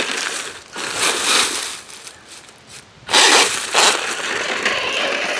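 Vintage Tamiya Blackfoot RC truck driving over dry leaves and dirt, its tyres crunching through the leaves, with the electric motor and gears running. The gears are clicking, which the owner puts down to the motor's pinion gear missing the gear a little.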